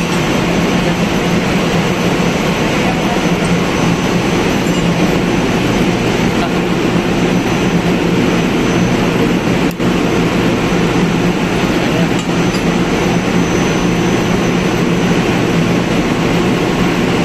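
Ship's engine-room machinery running: a loud, steady drone with a low hum.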